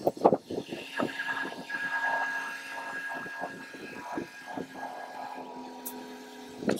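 Truck-mounted crane's engine running steadily with a held high tone as it lowers a boat in slings, with brief faint voices, and a sharp click near the end.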